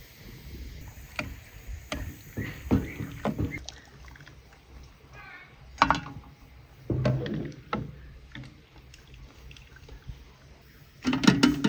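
Cookware and utensils being handled: scattered knocks and clinks in short irregular clusters, with some sloshing of liquid.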